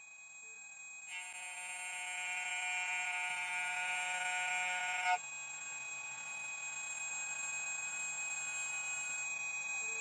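CNC key cutting machine milling a key blank, its spindle motor giving a steady high whine made of several pitches that builds up over the first second. Just after halfway there is a short click, and the whine drops slightly in level and changes tone as the cut moves on.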